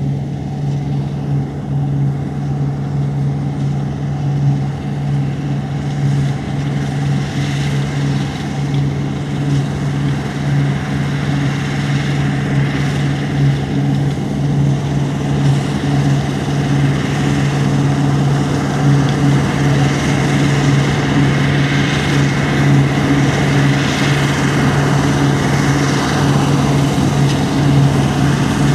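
Diesel engine of heavy farm machinery running steadily under load, a constant low hum that grows slightly louder over the stretch.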